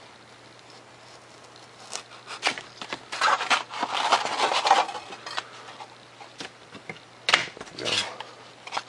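A razor knife drawn through a sheet of 3 mm Depron foam, making a scratchy, tearing sound for a couple of seconds. A couple of sharp knocks follow near the end.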